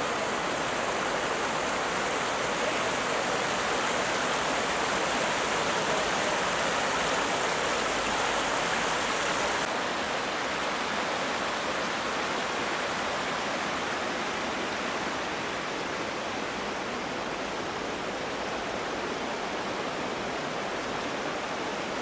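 Steady rushing of the flooded Guadiana river, brown floodwater pouring past rocks and through bushes, with no let-up; it becomes slightly softer from about ten seconds in.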